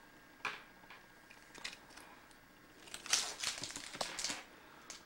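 Carded strands of fashion beads being handled and put down: a couple of light clicks, then a short run of rattling clicks and rustle about three seconds in.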